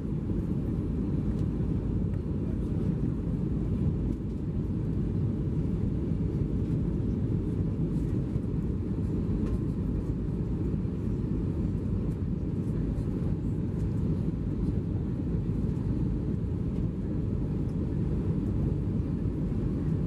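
Steady low cabin noise of an Airbus A320-214 in descent, heard inside the cabin: its CFM56-5B engines and the airflow over the fuselage, with no change in level.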